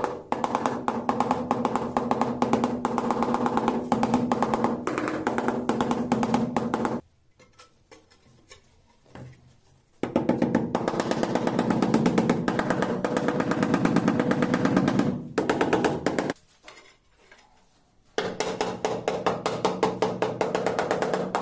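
Rubber mallet tapping rapidly on ceramic floor tiles to bed them into the tile adhesive: a quick, even run of hollow knocks with a faint pitch. It comes in three runs, broken by pauses with a few single taps.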